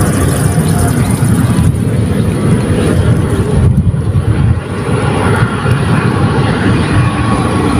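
Wind buffeting the microphone: a loud, steady low rumble that flutters without a break.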